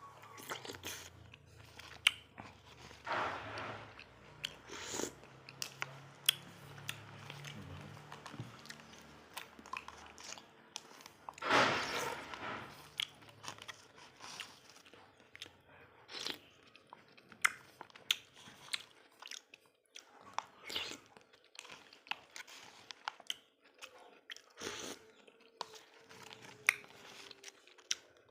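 Close-miked mukbang eating of a durian iced dessert with melon and young coconut: wet chewing and biting sounds broken by many sharp clicks, with a louder noisy burst about twelve seconds in.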